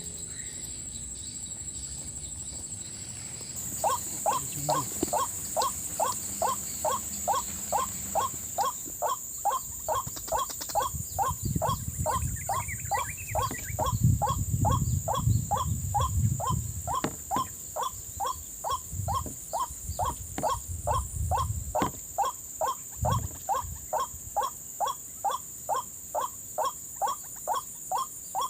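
White-breasted waterhen call: a short note repeated steadily a little over twice a second, starting about four seconds in. Low muffled noises come and go through the middle.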